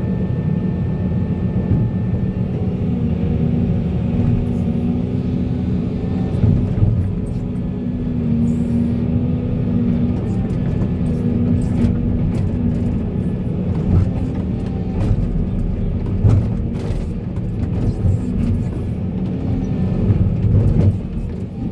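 Heavy diesel engine of an excavator running steadily under load, with scattered knocks and clatter.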